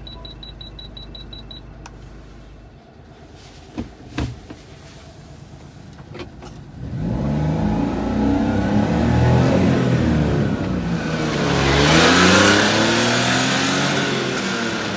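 1999 Suzuki Carry kei truck's small three-cylinder engine pulling away and accelerating, its pitch rising, dropping at a gear change and rising again as it passes close by. Before that there are short electronic beeps from the navigation unit and a couple of sharp knocks.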